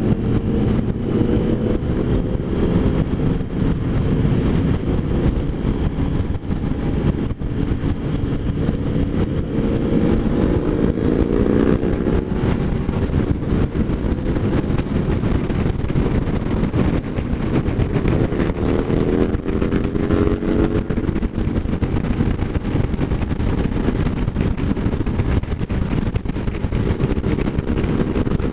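Motorcycle engine running at road speed under a thick rush of wind and road noise, heard from the rider's seat. The engine note climbs twice as it accelerates, about ten and eighteen seconds in.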